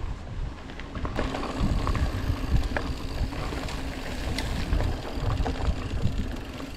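Orbea Occam mountain bike ridden over a gravel and dirt trail: a continuous low rumble of wind buffeting the action camera's microphone and of the tyres rolling, with scattered short clicks and rattles from the bike over bumps.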